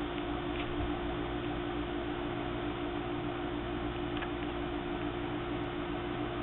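Steady hiss with a low, steady hum underneath and two faint clicks, about half a second and four seconds in.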